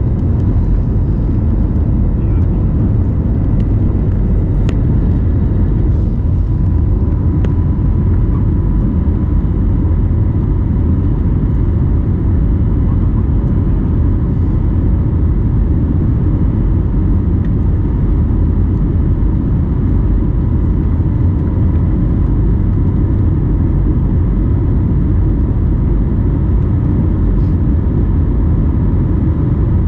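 Cabin noise of an Airbus A321neo climbing after take-off, heard from a window seat over the wing: a steady low rumble of the jet engines and rushing air, with a faint steady whine above it.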